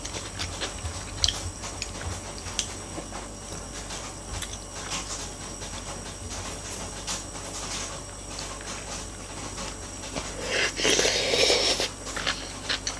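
Close-up eating sounds: chewing, with scattered sharp clicks of a wooden spoon and chopsticks against bowls. A louder slurp comes about ten and a half seconds in and lasts a second or so.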